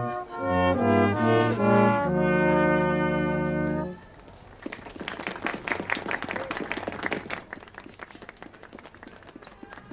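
Brass band playing a short run of chords that ends on a held chord, cut off abruptly about four seconds in; after it come quieter scattered clicks and knocks.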